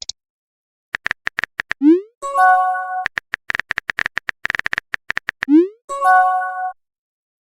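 Phone messaging sound effects: runs of on-screen keyboard tap clicks, each followed by a quick rising swoosh and a short chime of steady tones as a message appears. This happens twice.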